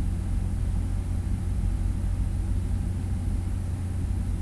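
Steady low hum and rumble, the constant background noise of the recording, with no other events.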